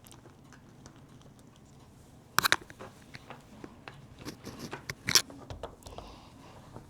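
Coloring supplies being handled, with light rustling and small clicks: a quick pair of sharp clicks about two and a half seconds in and another sharp click about five seconds in.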